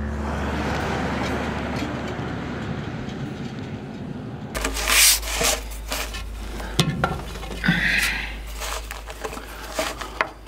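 A steady rushing noise for the first few seconds. It then gives way to scraping, rubbing and sharp knocks as a newspaper-wrapped explosive charge is pushed into a drill hole in the rock and tamped home with a wooden rod.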